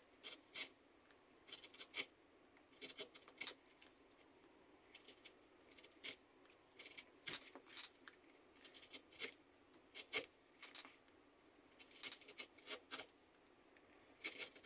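V-tool carving gouge cutting grooves into a small limewood carving: many short, faint scratchy cuts at irregular intervals.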